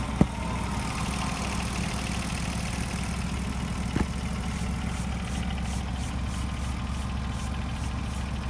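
Engine idling steadily, with two sharp knocks, one just after the start and one about four seconds in.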